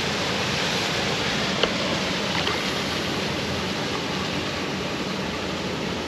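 A steady, even rushing noise, with a couple of faint clicks about one and a half and two and a half seconds in.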